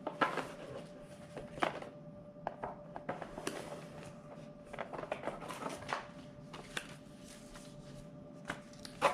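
Rustling and light clicking of packaging, paper and fishing tackle being handled as items are taken out of a mystery tackle box, in short irregular bursts.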